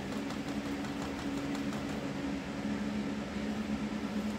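An oil-based Castle Arts Gold colored pencil scratching back and forth on paper as a color swatch is shaded in, over a steady low hum.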